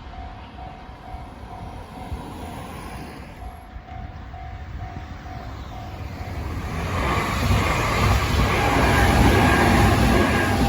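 Japanese level-crossing warning bell ringing in steady, evenly repeated pulses. An electric train then comes through the crossing, its wheels-on-rail rumble rising from about six seconds in and growing loud near the end.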